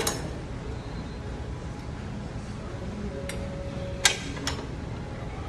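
Sharp metal clicks from a lying leg-curl machine being adjusted by hand: one at the start and a louder one about four seconds in, with a lighter click after it, over steady gym background noise.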